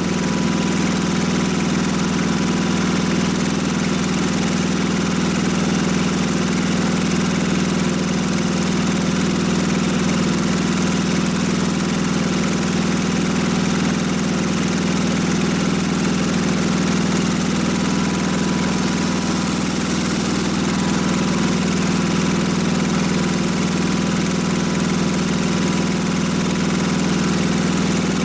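Gasoline engine of a Mobile Dimension sawmill running at a steady speed, with no change in pitch or loudness.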